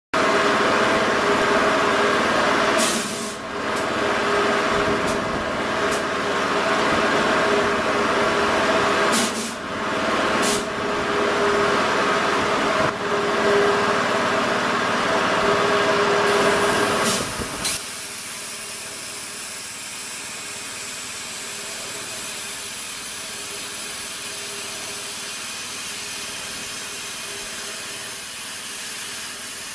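CNC plasma cutter cutting steel plate: a loud, steady machine noise with a hum and hiss and a few brief breaks and clicks, which drops about eighteen seconds in to a quieter, steady high hiss as the torch cuts.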